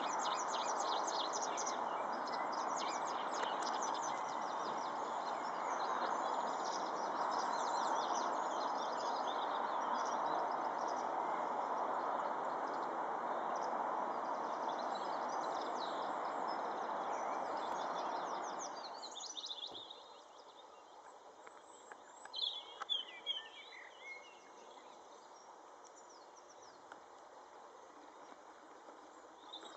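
Small birds chirping and twittering over a steady rushing noise. The rushing stops about two-thirds of the way through, leaving scattered bird calls over quieter background.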